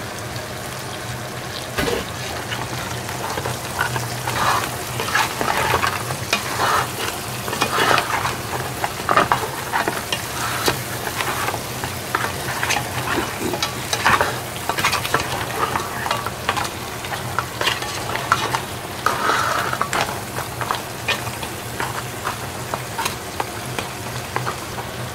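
Brown crab pieces and leeks sizzling in a pot while a wooden spatula stirs and turns them, with irregular scrapes and knocks of shell and spatula against the pot, busiest from about four seconds in until about twenty. A steady low hum runs underneath.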